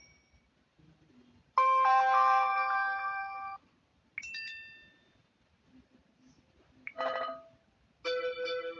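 Short built-in phone alert tones from a Samsung Galaxy Pocket, played one after another with pauses between them. A bright multi-note chime sounds about one and a half seconds in and fades over two seconds. A short ding follows near the middle, then a brief blip about seven seconds in, and another chiming tone starts near the end.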